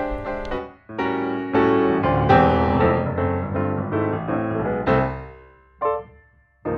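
Piano music: chords and notes that ring and fade, with a brief pause about a second in and a few separate notes near the end.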